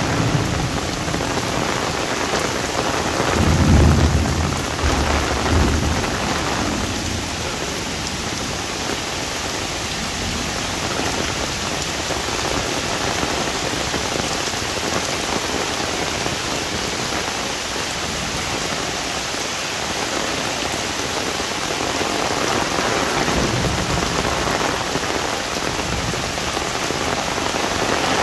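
Heavy rain pouring steadily and falling on an umbrella. A low rumble of thunder comes about three seconds in and lasts a few seconds, with a fainter one later.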